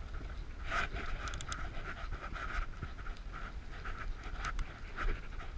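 Bicycle riding over icy, gritty pavement: a steady low rumble of wind on the microphone and tyre noise, with a rhythmic pulsing about two to three times a second and a few sharp ticks.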